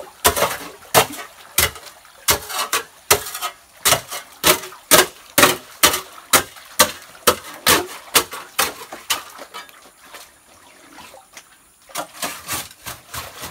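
A wide gold pan being rocked back and forth in muddy water, sloshing and splashing in a steady rhythm of about two strokes a second. It pauses about ten seconds in and starts again near the end.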